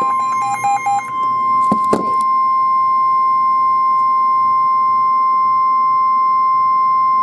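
NOAA Weather Radio's 1050 Hz warning alarm tone: a single loud, steady electronic tone held unbroken, the signal that a warning message follows. For about the first second a stepped beeping melody overlaps it, and a short burst of crackle comes about two seconds in.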